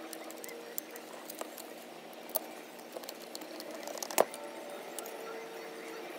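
Screwdriver driving the float-bowl screws into a 1957 Johnson 7.5 hp outboard carburetor: small scattered clicks and scrapes of metal on metal, with one sharper click about four seconds in, over a faint steady hum.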